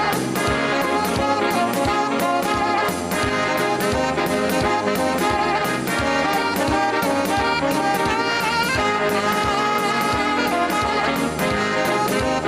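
Saxophone played live, with a wavering melody line held over a backing track that carries a steady drum beat.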